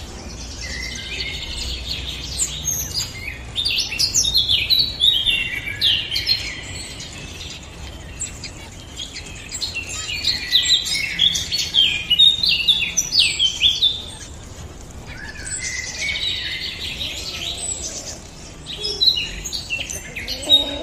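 Finches chirping and twittering in dense bouts of rapid calls, with short lulls between the bouts.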